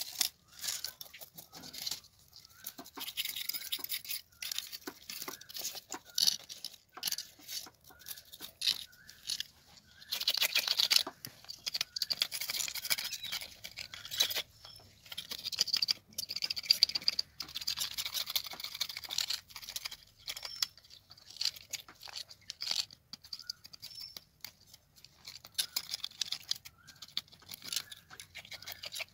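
Scales being scraped off a whole tilapia, first with a knife blade and then with a wooden scraper studded with metal caps. The sound is quick runs of short, high rasping strokes with brief pauses between runs.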